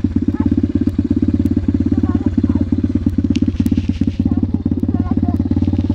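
KXD 125cc four-stroke dirt bike engine idling steadily through its sport exhaust, with a fast, even beat.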